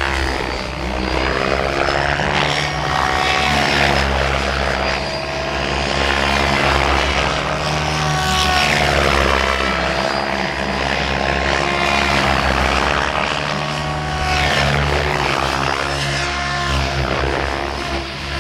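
Mikado Logo 700 electric RC helicopters flying 3D aerobatics: a continuous whir of rotor blades and drive that sweeps up and down in pitch again and again as they flip and pass.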